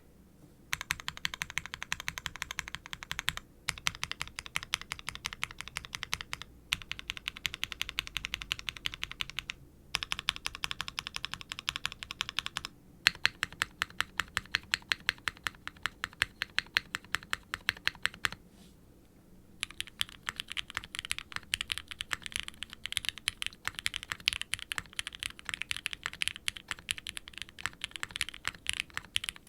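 Typing on a Qwertykeys QK60 R3 mechanical keyboard with custom Gateron frankenswitch linears (nylon housings, UHMWPE stems), a carbon fiber plate and GMK double-shot ABS keycaps: a soft, muted clacky bottom-out. Runs of fast keystrokes alternate with short pauses, with one stretch of slower, evenly spaced presses.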